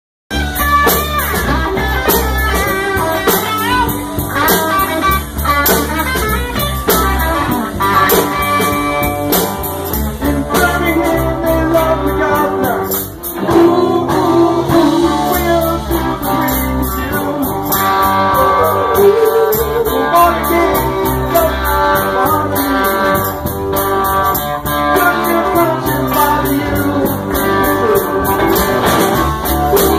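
A live rock band playing: electric guitars and drums with a steady beat, and singing over it.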